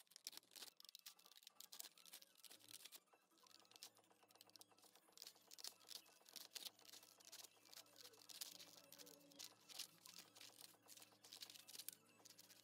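Scissors cutting printed paper templates: a faint, quick run of crisp snips and small clicks from the blades closing through paper, with the rustle of sheets being handled.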